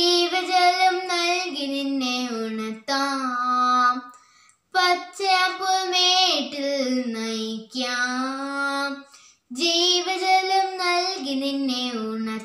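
A young girl singing a Malayalam Christian devotional song solo and unaccompanied. She sings in long held phrases with short breaths and pauses between them.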